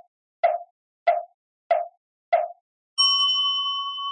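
Four hollow wooden knocks in a steady beat, a little under two a second, as on a temple wooden block. About three seconds in comes a single strike on a Buddhist bowl bell, which rings on with a long, slowly fading tone.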